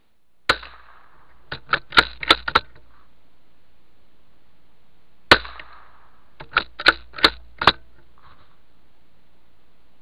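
.22 Magnum rifle fired twice, the shots about five seconds apart, each followed a second or so later by a quick run of four to six clicks as the rifle's action is worked for the next round.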